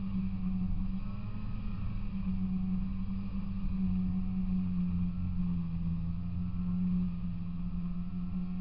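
Polaris Indy 340 snowmobile's two-stroke twin engine running steadily under way, its note dipping a little about halfway through and picking up again near the end.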